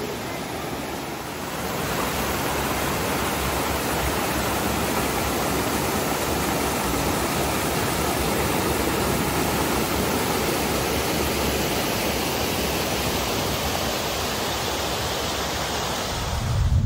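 A steady rushing noise spread evenly from low to high pitch, swelling about a second and a half in and then holding level.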